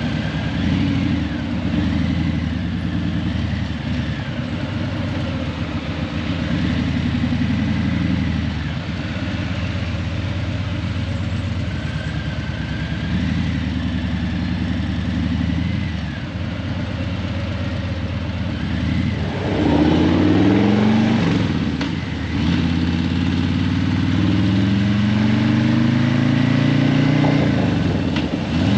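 Harley-Davidson Breakout 117's Milwaukee-Eight 117 V-twin through Vance & Hines Eliminator 300 slip-on mufflers, running at low revs in traffic. About two-thirds of the way in the revs rise, dip briefly at a gear change, and rise again to a louder, steadier pull.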